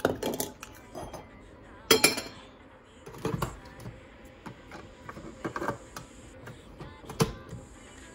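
Keurig single-serve coffee maker being loaded: a coffee pod taken from a glass jar, then the brewer's lid opened, the pod set in and the lid snapped shut. A series of separate plastic clicks and knocks, the sharpest about two seconds in.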